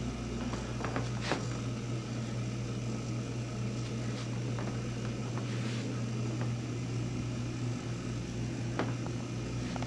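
A steady low hum with a few light clicks and taps scattered through it, as of a handheld camera being moved about.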